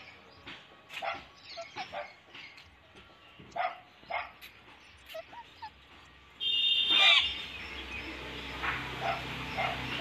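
Indian ringneck parakeets giving short, repeated squawks and chirps. About seven seconds in comes a louder, harsher screech.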